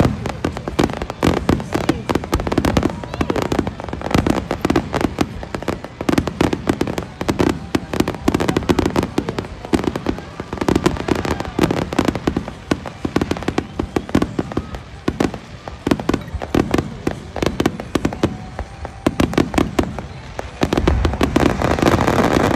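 Fireworks display: a rapid, continuous string of bangs and crackles, many shells bursting close together.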